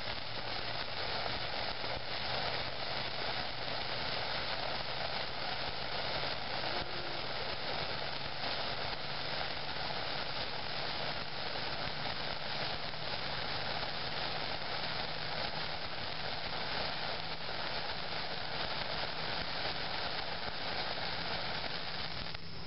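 Homemade magnesium sparkler (potassium nitrate, magnesium and charcoal) burning with a steady fizzing hiss, which cuts off suddenly near the end as it burns out.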